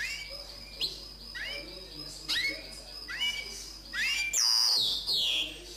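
Linnet × canary hybrid singing: a run of short rising notes, about two a second, under a held high whistle, then a louder phrase of quick falling notes about four seconds in.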